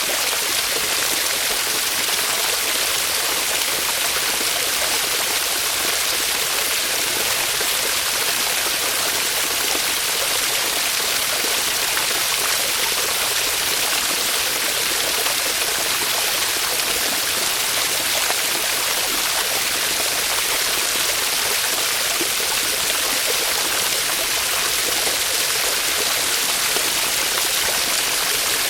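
A small waterfall splashing steadily, an even, hissy rush of falling water that holds constant.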